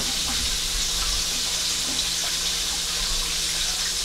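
Kitchen tap running into a sink during hand washing-up, a steady rush of water, over the continuing sizzle of chicken frying in oil on the stove.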